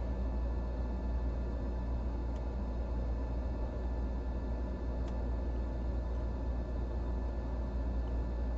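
Steady low hum with faint constant high-pitched tones above it, and two small faint clicks about two and a half and five seconds in.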